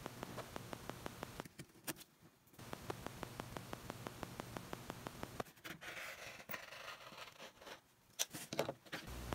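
Rotary cutter slicing through denim against a cutting mat, a quiet scratchy rasp in the middle, with a few louder clicks near the end. Under it, a faint rapid regular ticking and a low hum.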